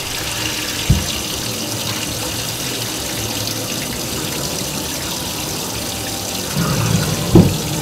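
Water running and splashing into a stainless steel sink as hot water is drained off a pot of boiled spaghetti squash and cold water runs in to cool it. There is a knock about a second in and a louder knock near the end.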